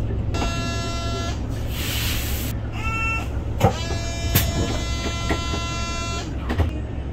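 Inside a city bus with the engine idling low and steady: a one-second electronic tone, a short burst of air hiss, a brief higher tone, then a longer steady tone lasting a couple of seconds, with a few knocks in between.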